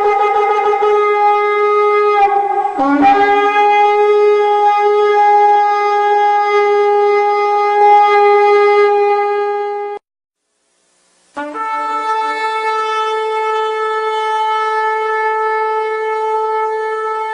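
Two long, loud, steady horn blasts. The first wavers and dips briefly to a lower note about two to three seconds in, then holds again and cuts off abruptly about ten seconds in. After a second of silence the second blast starts on a short low note and jumps up to a long held higher note.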